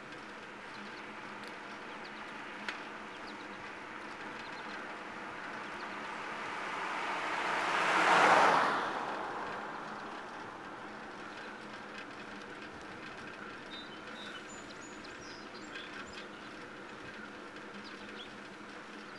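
A car passes on the road: its tyre and engine noise swells over several seconds, peaks about eight seconds in and fades quickly. Underneath runs the steady whir and rattle of the bicycle rolling on asphalt.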